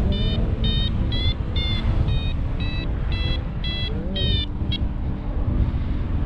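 Paragliding variometer beeping about twice a second, its climb tone signalling lift, stopping about three-quarters of the way through. Wind rumbles on the microphone, with music playing faintly underneath.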